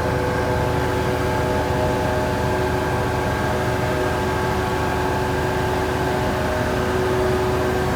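Steady mechanical drone holding several fixed pitches over a low rumble, unchanging throughout.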